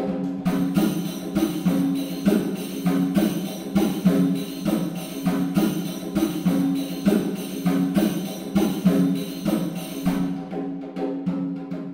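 Background music: held low notes under a steady beat of light percussion, the high end thinning out near the end.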